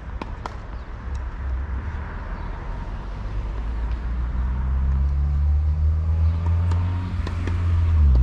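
A motor vehicle's engine running close by, growing steadily louder, with a low rumble and a steady engine tone. A few sharp clicks come in the first second.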